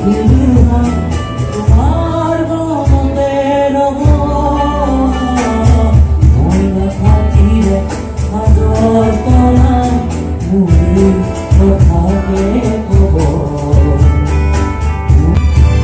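Live amplified music: a singer with an acoustic guitar, over a steady beat and heavy bass.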